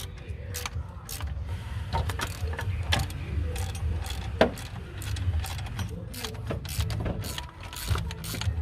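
Irregular metallic clicks and knocks of tools and strut parts being handled while the coil spring is fitted onto the shock absorber, over a steady low rumble.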